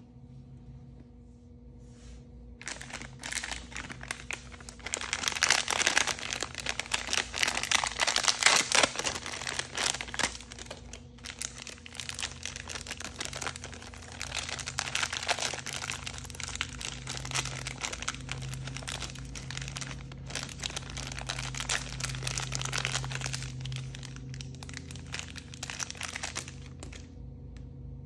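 Clear plastic wrapper crinkling as it is handled and pulled open around a small plastic toy. The crackling starts about three seconds in, is loudest in the following several seconds, and stops shortly before the end.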